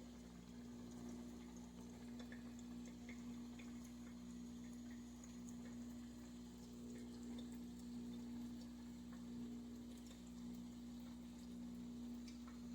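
Espresso machine running: a faint steady hum with scattered light drips and ticks.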